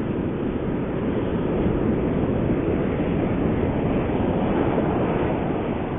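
Steady low roar of ocean surf, with wind buffeting the microphone.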